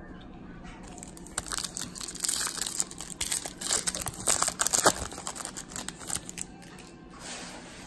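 Baseball card pack wrapper being torn open and crinkled by hand, a dense run of crackling rustles that peaks midway, ending in a short brushing hiss as the cards are slid out.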